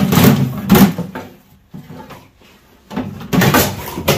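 Hard plastic carrying cover of a Kenmore sewing machine being handled and lifted off: clattering knocks in the first second, then another clatter about three seconds in, ending in a sharp click.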